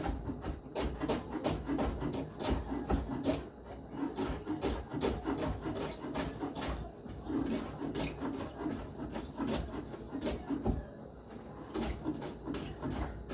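Kitchen knife slicing a celery stick thin on a cutting board: a steady run of crisp chopping strokes, about three a second.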